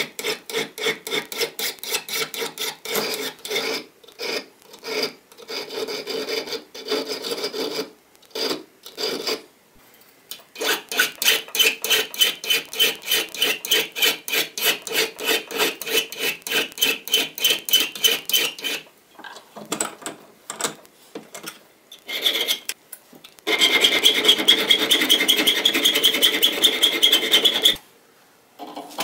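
Hand file scraping back and forth over the head of a small slotted metal screw clamped in a vise, in quick strokes about four a second with short pauses. Near the end the scraping runs unbroken for a few seconds.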